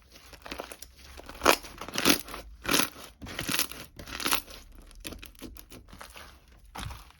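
Crinkling and crunching, like something being crumpled in the hands, in a run of irregular crackly strokes, the strongest about once every half second to second through the first four or five seconds.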